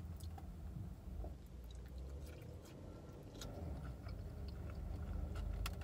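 Close-up chewing and mouth sounds of a person eating cheese fries, with small scattered clicks, over a steady low rumble of passing traffic.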